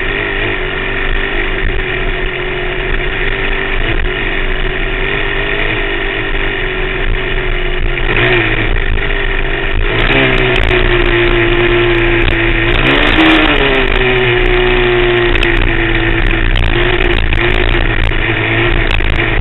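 Dirt bike engine running hard under way, with the revs dropping and picking back up about eight seconds in and again around thirteen seconds, a little louder in the second half.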